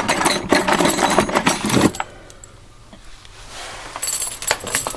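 Rusty metal tools and a chain rattling and clanking in an old toolbox as a chain-feed drilling attachment is tugged free. The rattling is dense for about two seconds, goes quiet, then picks up again in a short burst of jangling near the end.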